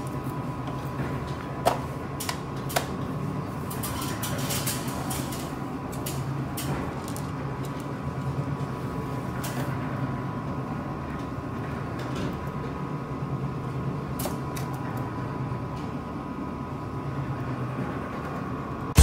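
Clicks and light knocks of a network video recorder's metal case being handled and turned over, two sharper clicks about two and three seconds in, over a steady room hum with a faint whine.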